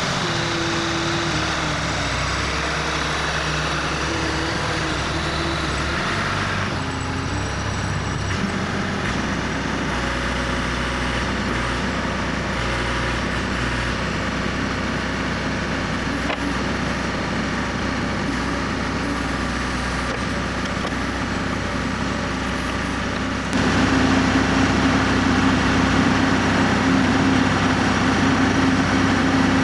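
Diesel engine of a JCB backhoe loader running steadily while the machine is driven into position and then left running. About three-quarters of the way through it grows louder, with a steady low drone coming up.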